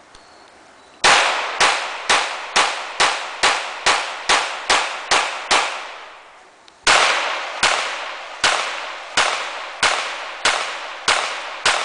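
EAA Witness .45 ACP all-steel semi-automatic pistol firing in rapid strings: about eleven shots, roughly two a second, with a short echo after each, then after a pause of about a second a second, slightly slower string of shots.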